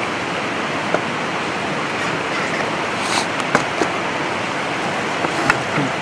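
Wood fire under a mess tin cooking on a grill: a steady hiss with a few scattered sharp crackles and metal clinks, several in the middle and one near the end as the lid is lifted off the steaming tin.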